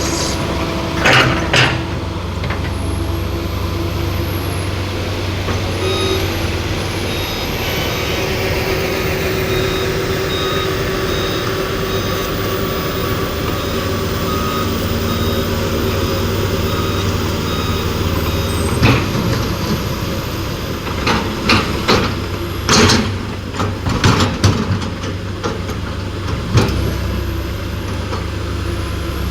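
Heavy vehicle engine running with a steady rumble, while a reversing alarm beeps evenly for about ten seconds in the middle. Several sharp knocks and clatters come near the start and through the last third.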